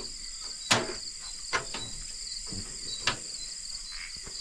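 Four sharp clicks from the ignition knob of a portable butane gas stove being turned, the first the loudest, over a steady chorus of crickets.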